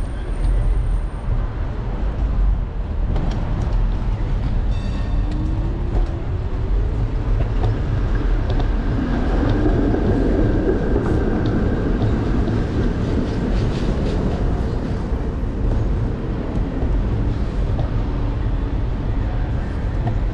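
Steady low rumble of riding an electric scooter down a city street, heard through a handlebar-mounted camera. A vintage streetcar runs along its rails alongside, swelling to its loudest about ten seconds in.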